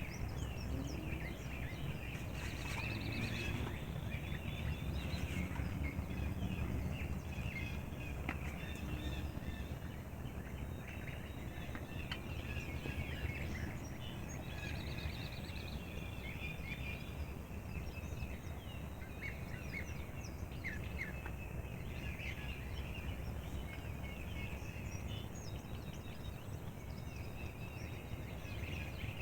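Morning chorus of songbirds chirping and trilling, many calls overlapping, over a steady low rumble of wind or distant noise.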